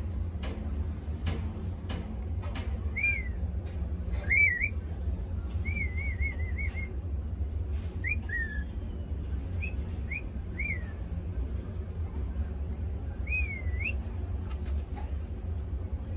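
A series of short whistled notes spaced a second or two apart, each swooping up and down in pitch, with one quick warbling run of notes in the middle. A few sharp clicks come in the first few seconds, over a steady low hum.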